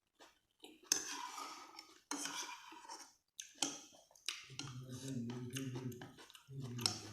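Cutlery clinking and scraping against a plate during a meal, several sharp clicks in the first few seconds, with a low voice sounding in the second half.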